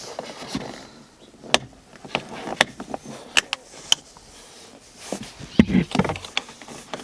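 Sharp clicks and knocks of a hand tool working at the screw behind the car door's interior handle, about four distinct clicks, then a stretch of handling and rustling near the end.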